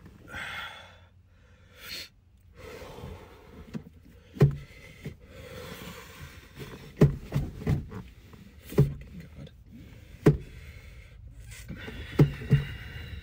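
A man's ragged breathing and gasps inside a car, then about eight sharp knocks and thuds against the car's interior, several in quick pairs.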